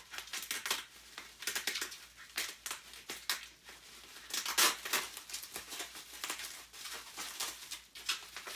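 Bubble wrap crinkling and rustling in the hands as it is pulled open, in irregular bursts, loudest about halfway through.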